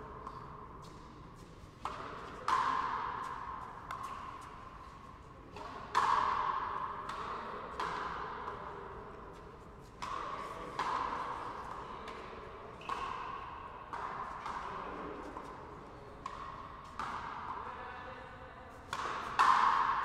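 Frontenis rally: a hard rubber ball struck by strung rackets and smacking off the front wall, a sharp crack about every one to two seconds, each ringing on in a long echo around the enclosed fronton court.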